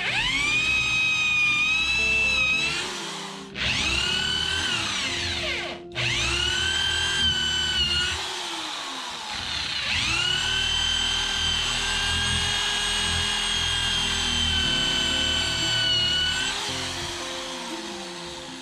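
Corded electric drill boring holes through a pine 2x4: the motor's whine spins up, holds steady and runs down again four times, the last run the longest.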